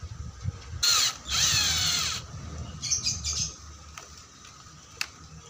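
Benz Werkz BZ-8004 cordless drill driving a Phillips screwdriver bit through a flexible extension shaft, spinning in two short runs about a second in. The second run's whine falls in pitch. A few brief clicks follow about three seconds in.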